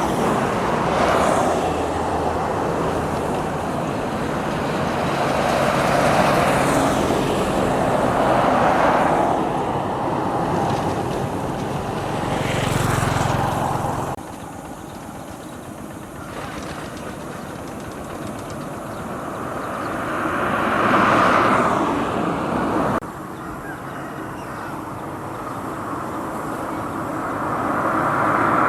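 Road traffic going by: vehicles swell in and fade out one after another, every few seconds, as a noisy rush. The level drops suddenly twice, once near the middle and again later.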